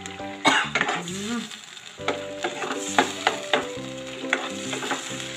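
A spatula stirring and scraping chili sambal as it sizzles in oil in a wok, with sharp knocks of the spatula against the pan several times. Soft background music plays underneath.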